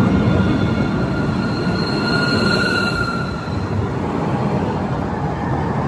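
A low-floor electric tram rolls past close by, with a steady rumble of wheels on rail. A high-pitched whine swells about two seconds in and fades a second later.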